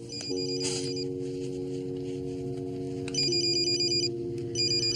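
Phone ringing with a rapid electronic trill, two rings, the first about three seconds in and the second near the end.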